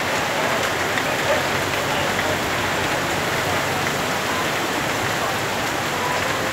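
Heavy rain from a storm pouring down steadily, an even hiss with scattered drop impacts.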